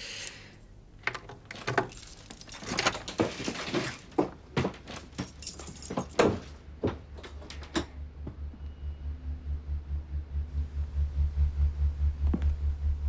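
A bunch of keys jangles and a key works a Yale-type cylinder lock, with a run of metallic clicks and rattles. The latch clacks and the door opens about six seconds in. After that a low pulsing beat, about three pulses a second, grows steadily louder.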